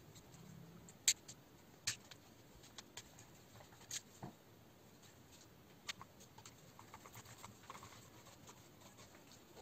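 Small plastic clicks and taps from parts and a screwdriver being handled on a 1/10-scale RC buggy chassis: a few sharp clicks a second or two apart, with faint rustling between.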